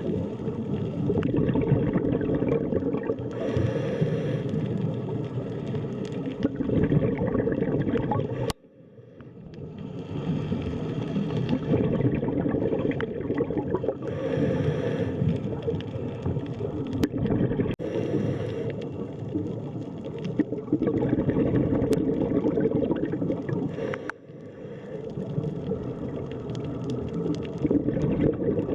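Underwater sea ambience: a steady low rumble of moving water with bubbling and gurgling. It cuts out abruptly twice and swells back in over a second or two.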